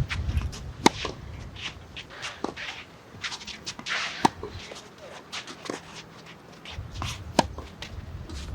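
Wind buffeting the microphone on an outdoor tennis court, with shoes scuffing and shuffling on the court surface and three sharp knocks about three seconds apart.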